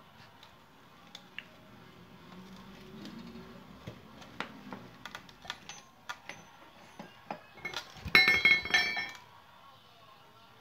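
Loose steel bolts, nuts and washers clinking as they are handled on a tiled floor: scattered light clinks, then a loud burst of ringing metallic clinks about eight seconds in, lasting about a second.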